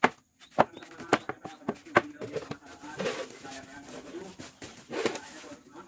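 Hands raking and scooping mealworms across a wooden tray with a mesh bottom, with several sharp wooden knocks and clicks as the tray and its frame are handled.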